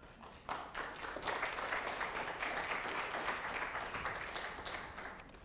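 Audience applauding, starting about half a second in, building, then dying away near the end.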